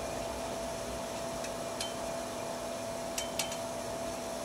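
A few light metal clinks as long tongs touch a heated steel locking collar being shrunk onto a tractor half shaft over its bearing, with a steady faint tone underneath throughout.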